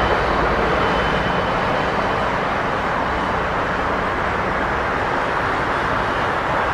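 Busy street traffic: a steady, unbroken hum of car and van engines and tyres in slow, congested traffic.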